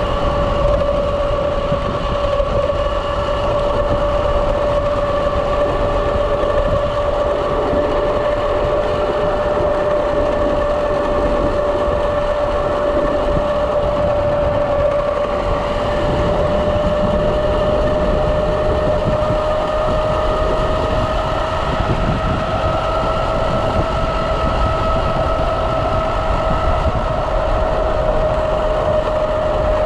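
Electric drive of a Kawasaki KLX electric-conversion motorcycle under way: a steady whine that climbs a little in pitch in the second half as motor speed rises, then eases back near the end, over wind and road rumble.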